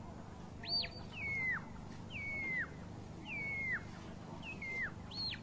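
A handler's sheepdog whistle commands steering a working collie on the fetch. There is a short rising-and-falling whistle, then four whistles that slide down in steps, then another rising-and-falling whistle near the end.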